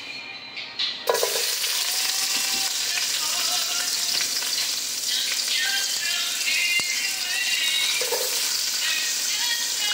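Sliced red onions hitting hot oil in a pan: a sudden sizzle starts about a second in and carries on steadily as the onions fry.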